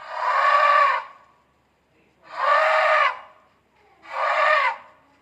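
Elephant trumpeting: three loud, brassy calls about a second long each, a second or so apart, each rising and falling in pitch.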